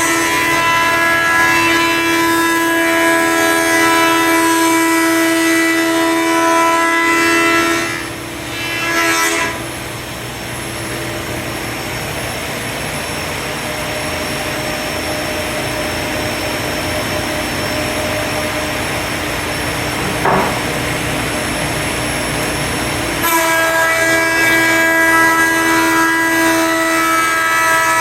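20-inch Grizzly thickness planer running with a steady, multi-tone whine. About eight seconds in the sound turns rougher and noisier as a black walnut and resin board feeds through the cutterhead, and the clean whine comes back suddenly near the end as the board clears.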